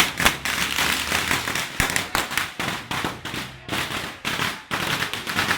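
A string of firecrackers going off in a rapid, irregular run of sharp cracks, a few louder bangs standing out among them.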